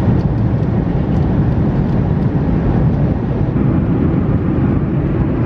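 Airliner cabin noise: a steady low roar of engines and rushing air.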